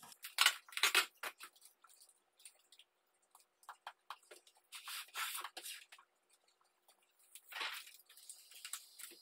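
Aluminum foil tape and its paper backing being handled and peeled at a table: short bursts of crinkling and rustling, three of them louder, with a fainter rustle near the end.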